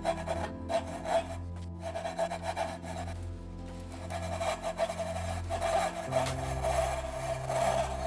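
Coping saw cutting a curve through white cedar: fast, rasping back-and-forth strokes, easing off briefly about three seconds in, over soft background music.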